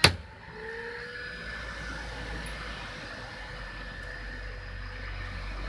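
A sharp tap on the Suzuki Address 110's LED headlight bulb cuts off the whining noise of its built-in cooling fan. The fan then runs on with a quieter, steady tone that rises slightly at first, over a low hum.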